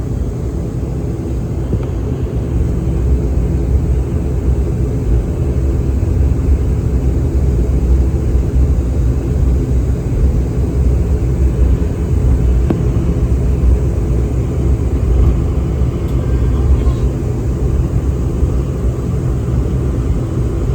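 Airliner cabin noise while the plane taxis in after landing: a steady low rumble of the running engines and rolling, with a faint hum, rising slightly about two seconds in.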